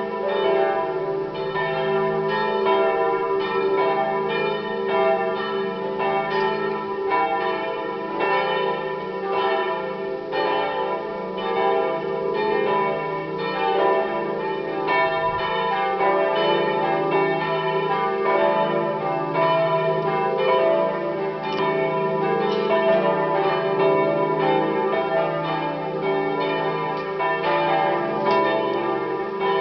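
Peal of several swinging church bells, their strokes overlapping in a continuous, irregular chime, rung to call to the Saturday evening vigil mass.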